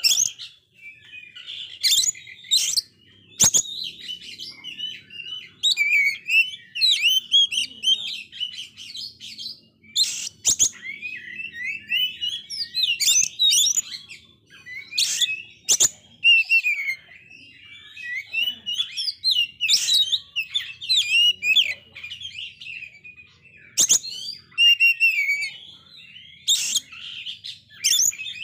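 Male oriental magpie-robin singing non-stop: a fast, varied run of whistles and chattering notes, broken every few seconds by loud, sharp notes.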